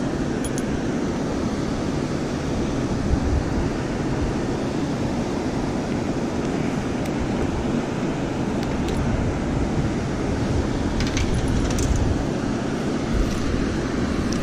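Steady rush of water pouring through the concrete dam spillway, with low wind rumble on the microphone and a few faint small clicks.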